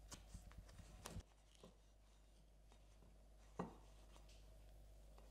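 Faint strokes of a kitchen knife cutting into a panettone, a quick run of soft clicks over the first second or so, then a single louder knock about three and a half seconds in.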